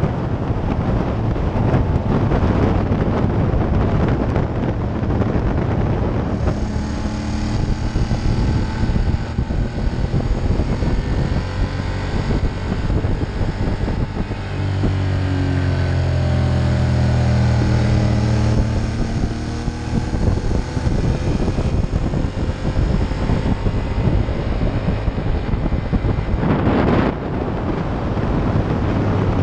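Wind rushing over the camera microphone on a moving Ducati Monster 1200. From about six seconds in until near the end, the bike's V-twin engine note comes through, rising and falling in pitch with the throttle.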